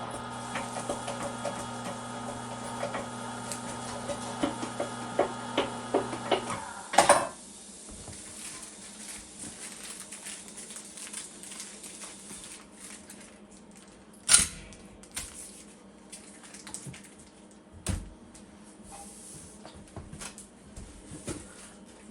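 Cabela's Carnivore electric meat grinder's motor running with a steady hum and a string of clicks, then switched off about six and a half seconds in. A loud metal clatter comes right after it stops, with quieter clinks and two more sharp clanks later.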